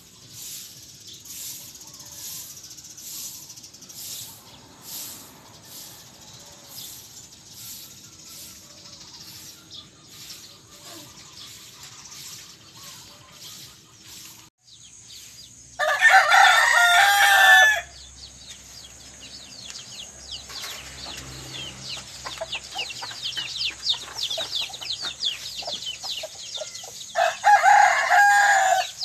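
Rooster crowing twice, each crow lasting about two seconds, one about halfway through and one near the end, over steady chirping of many small birds.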